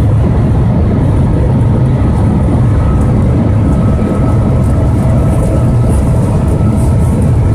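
Cabin noise of the Shanghai Transrapid maglev train running at about 300 km/h: a loud, steady low rumble and rush of air, with a faint steady whine above it.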